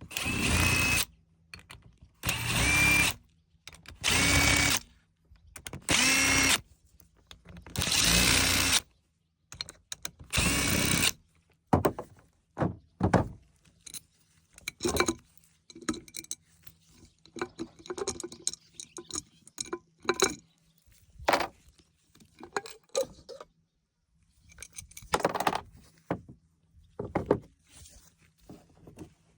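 Power drill run in six short bursts of about a second each over the first eleven seconds, then clicks, taps and clatter of tools and parts being handled, with a few more short bursts near the end.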